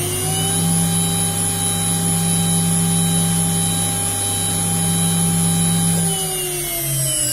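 1.5 kW water-cooled CNC router spindle running at about 24,000 rpm with a steady high whine after finishing its run-up, then beginning to spin down about six seconds in, its pitch falling.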